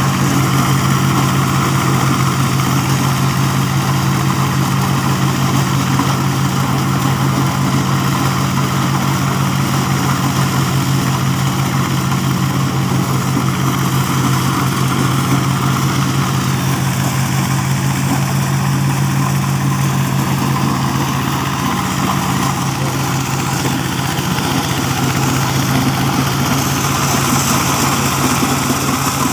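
A double-blower corn sheller driven by a single-cylinder diesel engine, running steadily while cobs are fed in and shelled. It makes a constant engine drone under the whir of the threshing machinery.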